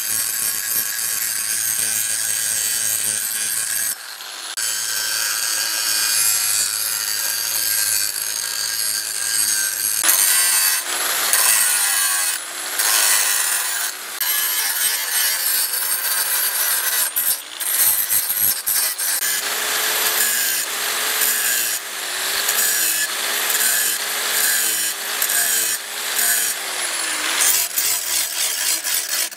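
Handheld angle grinder with an abrasive disc grinding a spring-steel knife blade, a steady hissing rasp over the motor's whine. The whine wavers in pitch as the disc is pressed into the steel, and there are several brief breaks, the first about four seconds in.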